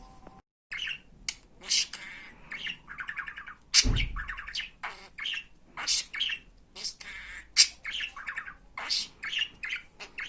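Budgerigar chattering in quick, short, high chirps and squawks, with a brief silent gap just after the start and a single thump about four seconds in.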